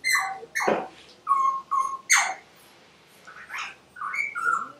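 A run of short, high chirping animal calls, about eight of them, some falling in pitch.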